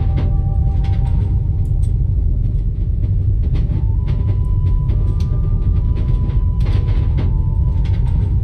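Deep, steady rumble of a train carriage in motion, with a few soft clicks and a faint high held tone that comes in about four seconds in.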